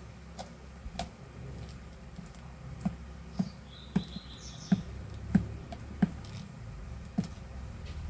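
Hand screwdriver driving a screw into a hair dryer's plastic motor mount: a string of short sharp clicks, roughly one every two-thirds of a second, over a low steady hum.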